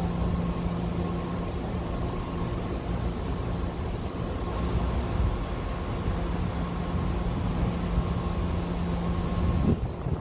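Steady motor hum over a low rumble, dropping away abruptly just before the end.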